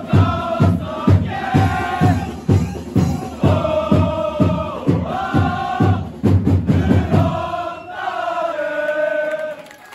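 A crowd of Kawasaki Frontale supporters chanting in unison to a steady beat of about two hits a second. Near the end the beat stops and the voices hold one long final note, which then dies away.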